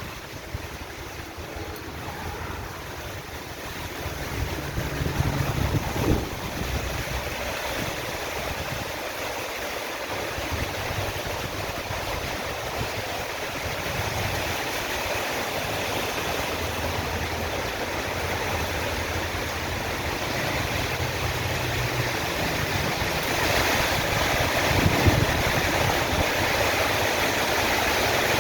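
Storm ambience: a steady rushing of wind and water with a low rumble, swelling gradually louder.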